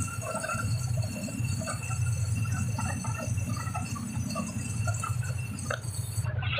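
Vehicle engine drone and road noise from inside a moving vehicle, a steady low hum with a hiss over it and scattered small rattles.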